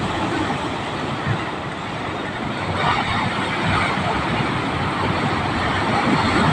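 Sea waves breaking and washing on the shore, a steady rushing.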